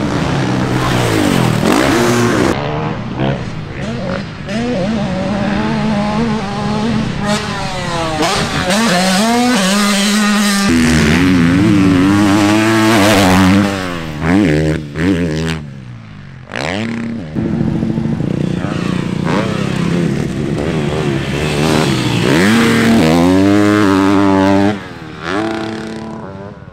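Motocross bike engines revving hard, the pitch climbing and dropping over and over as the riders open the throttle, shift and jump. The sound breaks off and changes abruptly a few times as one bike gives way to another.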